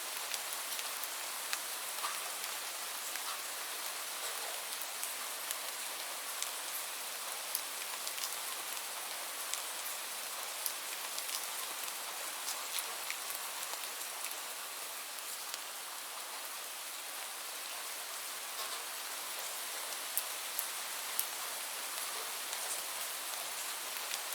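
Steady rainfall: an even hiss of rain with scattered individual drops ticking sharply on a surface.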